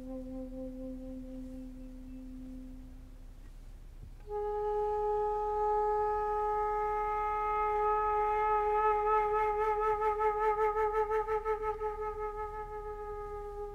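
Background film score: a low held wind note fades away. Then a woodwind plays one long sustained note that swells and takes on a widening vibrato.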